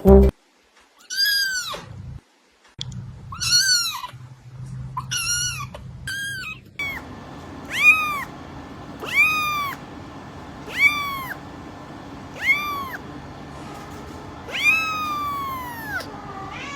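A cat meowing over and over, about nine separate meows, each rising and then falling in pitch. The last meow is longer and slides down at its end.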